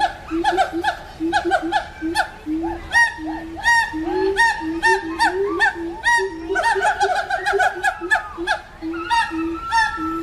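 A troop of monkeys calling over one another, a noisy chorus of short, rapid, repeated pitched calls with a few longer gliding cries mixed in.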